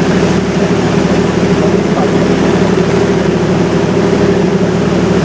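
A river cruise ship's engine drone heard aboard while the ship is underway: a loud, steady hum with several low pitched tones that does not change.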